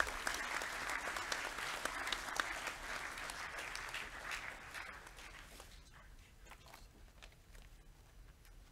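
Audience applauding, a dense clatter of many hands that dies away about five to six seconds in, leaving only a few scattered claps.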